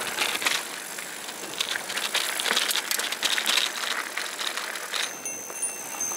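Loaded bikepacking mountain bike rattling down a rocky dirt trail: tyres crunching over dirt and stones, with the frame and bags clattering over the bumps. About five seconds in the rattle eases and a high, thin bell-like ringing begins.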